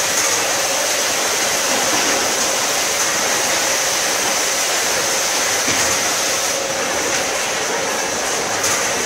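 Automatic case packer for bagged legumes and rice running: a steady, dense mechanical noise with a constant high whine and a few faint clicks.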